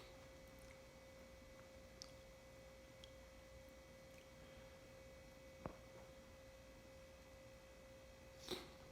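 Near silence: room tone with a faint steady high hum. There is a single sharp click about two-thirds of the way through and a short breathy sound near the end.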